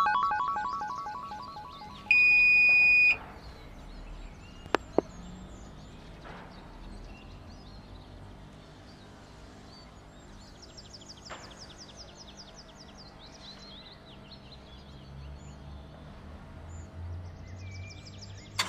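Cartoon sound effects over a low background: a ringing chime fades out at the start, a steady electronic beep lasts about a second starting two seconds in, and two quick clicks follow. The rest is faint ambience with bird-like chirping trills.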